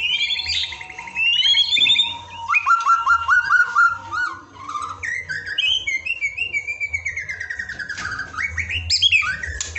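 White-rumped shama singing a varied song: fast trills, choppy whistled phrases, a long note sliding down in pitch in the middle, then quick rising notes near the end.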